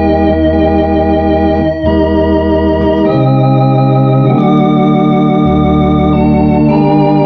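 Grace electronic organ playing a slow hymn in sustained chords, with the chord changing every second or so over low bass notes.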